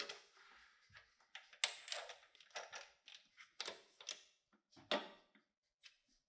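A string of short clicks and clatters, about half a dozen in a few seconds, from small parts and tools being handled while the coffee grinder is worked on.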